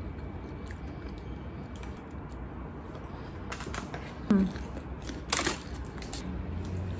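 Eating sounds: light clicks of wooden chopsticks and quiet chewing, with a short falling 'mm' from the eater about four seconds in and a brief sharp clatter about a second later.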